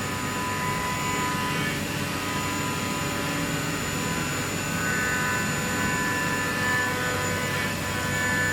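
Surface grinder running with its grinding wheel spinning: a steady machine whine and hum with several steady high tones, a few of them shifting about halfway through.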